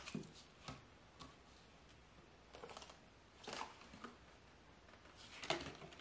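Faint handling noises: a few light clicks and knocks of a plastic dryer nozzle and hose being fitted together, with a louder rustle of paper near the end.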